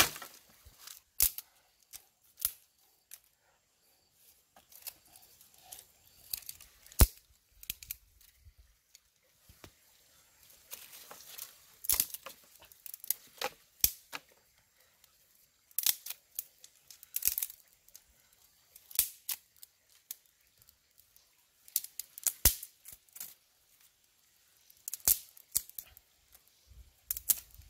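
Dry sticks and twigs snapping and cracking by hand, irregular sharp snaps with quiet gaps between, along with rustling of dry twigs and leaf litter while a small kindling fire is built and fed.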